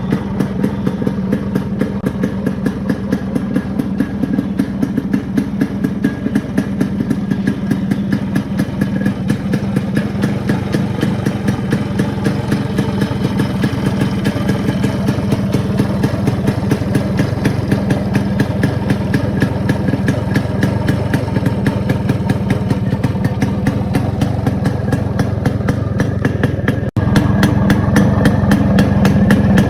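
Yamaha RX100's 98 cc two-stroke single-cylinder engine running steadily at idle, with an even, rapid exhaust beat. There is a brief break near the end, after which it is louder.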